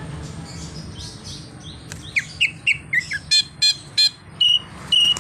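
Greater green leafbird (cucak ijo) singing a fast run of mimicked calls: quick downward-sliding chirps about two seconds in, then several sharp, loud notes, then two short steady whistles near the end.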